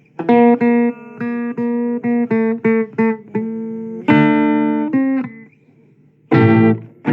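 Guitar playing a blues chord pattern, a quick series of plucked chords that ring out. It stops for about a second near the end, then comes back in with fresh chords.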